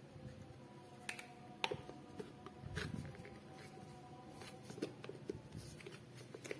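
Scattered light clicks and taps of plastic containers, lids and a metal spoon being handled, with a plastic lid pressed onto a container in the second half.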